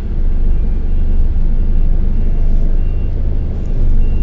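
Heavy diesel truck engine rumbling low and steady while moving slowly, with faint short high beeps from reversing alarms recurring about once a second.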